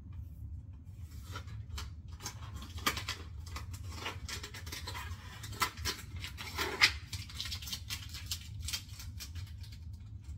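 Hand dishwashing in rubber gloves: irregular rubbing, scraping and light clicks of gloved hands working over dishes, with a sharper knock about seven seconds in, over a steady low hum.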